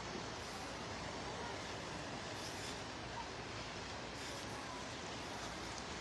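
Steady beach ambience: an even hiss of wind and small Gulf waves washing in, with no single event standing out.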